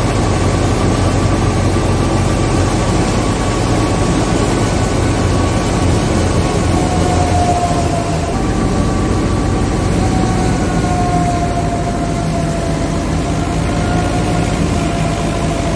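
Tractor-powered wheat thresher running steadily as wheat is fed in: a loud, continuous mechanical din over a low engine drone, with a steady high whine that sags slightly in pitch about halfway through.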